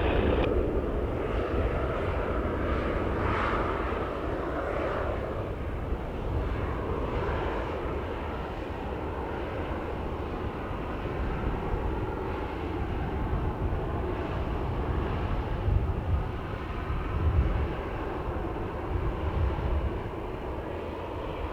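Airplane engine noise, a steady rumble that eases off over the first several seconds and then holds level, with wind buffeting the microphone.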